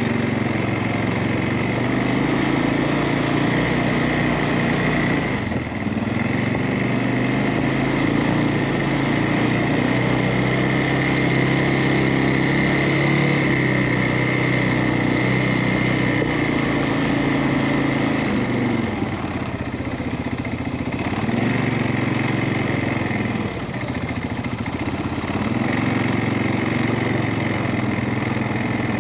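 CFMOTO ATV engine running under way on a trail, with a steady high whine alongside. The engine pitch dips and rises several times in the second half as the throttle eases and opens.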